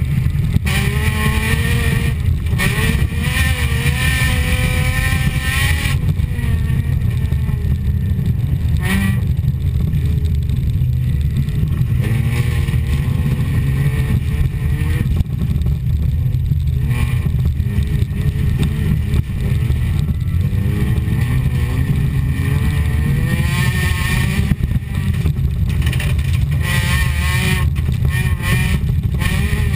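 A folkrace car's engine, heard from inside its cabin, racing over a dirt track. Its pitch climbs and falls again and again as it accelerates, shifts and lifts, over a heavy steady rumble.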